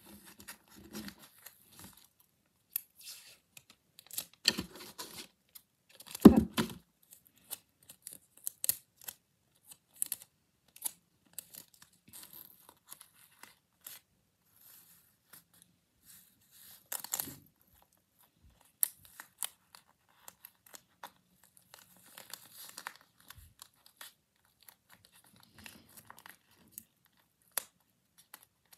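Sticky tape being pulled off the roll and torn, with paper crinkling and rustling as a stuffed paper bag is taped shut; a single louder thump about six seconds in.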